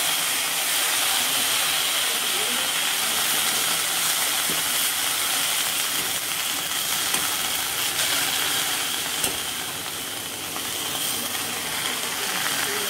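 Water sprinkled into a hot steel pan of frying masi karuvadu (dried tuna) crumble, sizzling with a steady steam hiss that eases a little about ten seconds in. A perforated steel ladle stirs the mix, with a few light scrapes against the pan.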